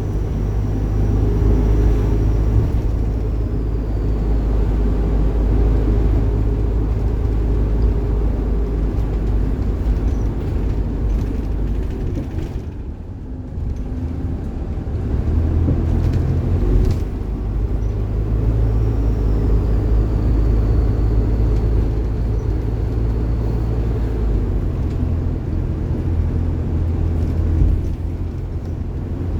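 Bus running on the road, heard from inside: a steady engine and road rumble that dips about halfway through and then picks up again, with a faint high whine twice.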